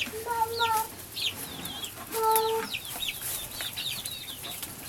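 Chickens clucking: two drawn-out clucks, about half a second and two seconds in, over a steady run of quick, high, falling chirps.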